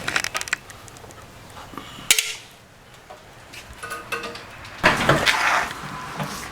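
Metal tools and bolts clinking and rattling during work on an engine's oil pan bolts. There is a sharp metallic knock about two seconds in and a longer rattle of clinks about five seconds in.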